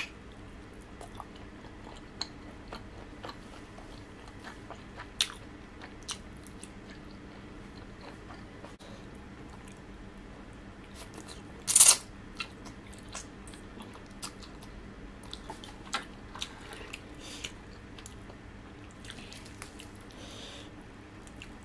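Close-up eating sounds of a person chewing and biting momos, spicy instant noodles and grilled chicken, with scattered small wet clicks. There is one louder, brief noisy burst about twelve seconds in.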